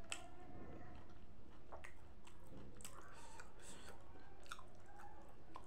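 A person chewing food close to the microphone, with irregular wet mouth clicks and smacks.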